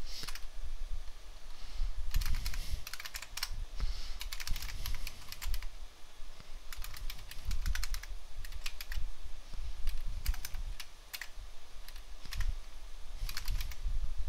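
Typing on a computer keyboard: quick runs of key clicks separated by short pauses.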